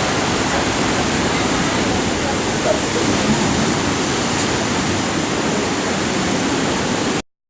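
Surf on a stormy sea: a steady, loud rush of breaking waves and churning water that cuts off suddenly near the end.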